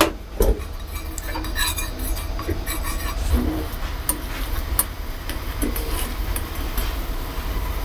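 A small aluminium pan of soba dashi being stirred as it thickens with starch slurry over a gas burner: scattered light scrapes and clinks against the pan over a steady low rumble.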